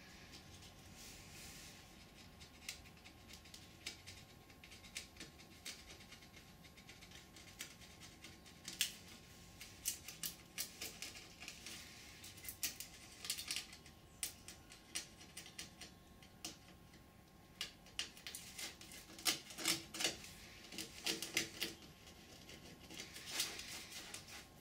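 Irregular sharp clicks, ticks and light scratches of a toothpick being worked around the edge of a 3D-printed ABS mould, prising a foam wing skin free. The clicks come in scattered bunches, busiest about halfway through and again near the end.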